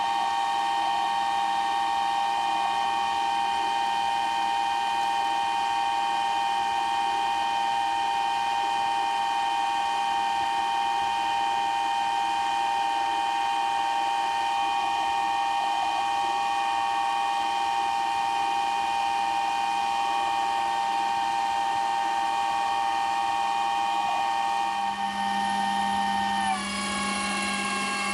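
Metal lathe running steadily under power feed, its gearing giving a high, even whine, while a WNMG carbide insert takes a heavy turning cut along a metal shaft without chatter. Near the end the whine drops slightly in pitch.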